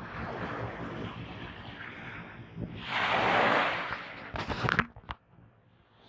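Small waves lapping and washing onto the sand at the water's edge, with wind on the microphone; one louder wash about three seconds in, followed by a few sharp crackles.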